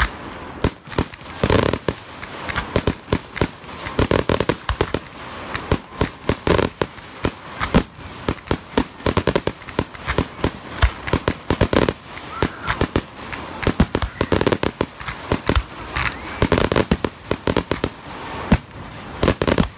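Fireworks going off: a dense, irregular string of sharp bangs and crackles, several a second, with heavier, fuller booms every couple of seconds.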